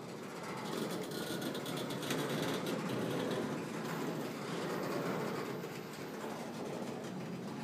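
Freight train of enclosed autorack cars rolling past close by: a steady rumble of steel wheels on rail, with faint clicks scattered through it.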